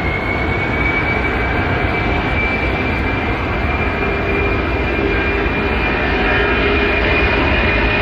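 Large aircraft's engines running, with a steady high whine that slowly rises in pitch while the sound grows a little louder.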